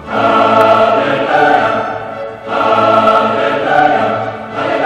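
Choral music: voices holding long chords in phrases, with a short break about two and a half seconds in.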